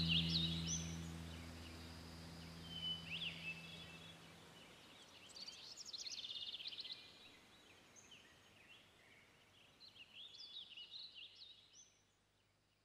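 Songbirds chirping, with short rising and falling calls and a quick trill about six seconds in, while a low held musical chord fades out over the first few seconds. The birdsong thins out and stops near the end.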